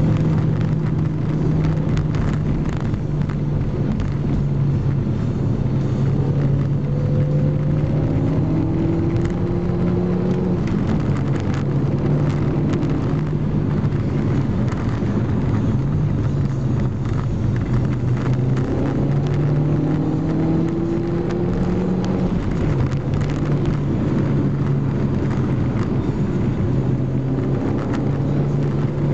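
SEAT Ibiza Cupra engine and tyre noise heard inside the cabin while driving at speed, the engine note shifting and rising in pitch a few times. Occasional light knocks from the shaking camera mount over the rough road.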